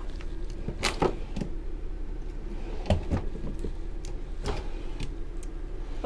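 Drawers of an RV kitchen cabinet being pulled open and pushed shut on metal slide runners, giving several sharp knocks over a steady low hum.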